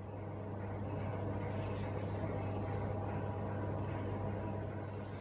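A steady low hum inside an electric commuter train carriage standing at the platform, from the train's onboard electrical equipment running while it waits.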